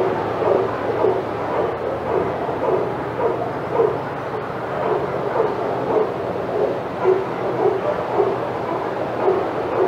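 Dogs barking over and over, about two barks a second, without a break.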